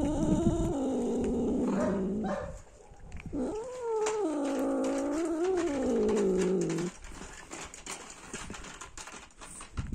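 A cat yowling at a rival cat: two long, drawn-out, wavering calls, the first fading out about two and a half seconds in, the second starting about a second later and breaking off about seven seconds in.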